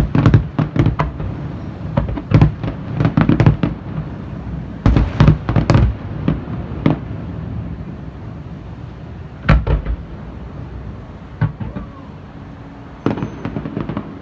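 Fireworks display bursting: quick clusters of sharp bangs through the first six seconds, then scattered single bangs with pauses between them.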